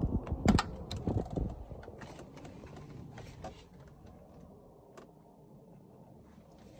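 Rumbling handling noise and knocks on the phone, loud for the first second and a half, then faint scattered clicks and rustles. No engine is running.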